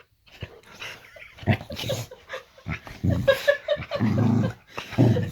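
A boxer dog making a run of low, pitched vocal noises in answer to being told it's bedtime, loudest between about three and four and a half seconds in.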